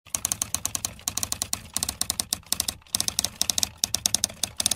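Typing sound effect: rapid keyboard clicks in quick runs with brief pauses, accompanying on-screen text being typed out letter by letter.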